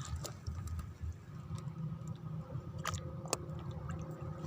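A few sharp, scattered clicks over a low steady rumble.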